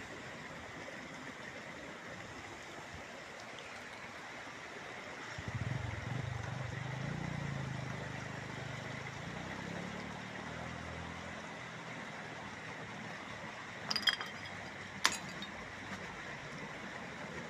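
A motor vehicle engine running at a distance, coming up about five seconds in and fading away a few seconds later, over a steady outdoor hiss. Two sharp clinks about a second apart near the end.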